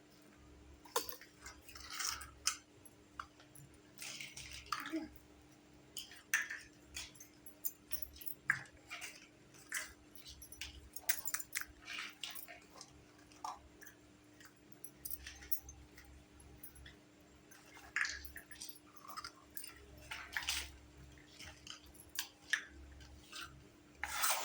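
Small plastic and metal toy kitchen pieces being handled: irregular clicks, taps and light scrapes, over a faint steady hum.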